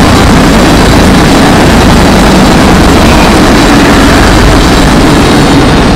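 A very loud, heavily distorted steady roar, overdriven to the point of clipping, with no breaks.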